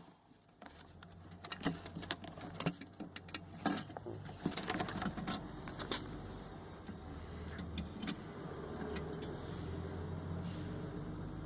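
Clicks, knocks and rattles of hands working plastic headlight-assembly parts, thickest in the first half, with a low steady rumble growing under it in the second half.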